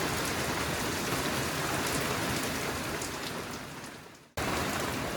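Steady rain falling, with scattered drops ticking through it. It fades away about four seconds in, then comes back abruptly at the same level.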